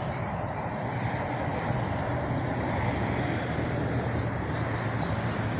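Steady noise of freeway traffic, an even rushing sound with a low hum underneath.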